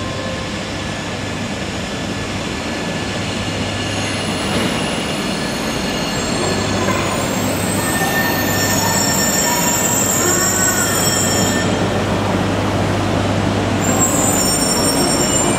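Shinkansen train running through the station, growing steadily louder, with thin high-pitched whines coming in about halfway through and again near the end.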